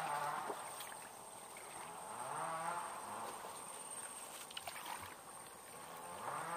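A small boat engine droning, its pitch sagging and rising as the throttle or distance changes. It fades somewhat after the start and swells back up near the end.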